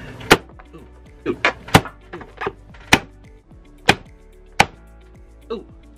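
Claw hammer smashing the shell of a giant cooked lobster claw: five hard blows about a second apart, with lighter knocks between.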